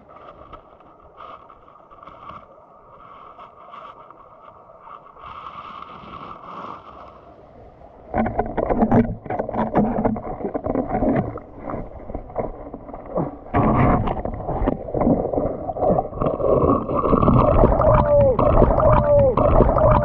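Underwater sound picked up through an action camera's housing in a stream: a faint steady water hiss, then from about eight seconds in, loud irregular knocking, scraping and churning water as the eel-hole line is worked at the rock crevice, with a few bubbling gurgles near the end.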